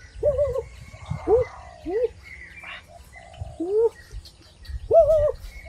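Short animal calls, each rising or wavering in pitch, repeated about every half second to a second.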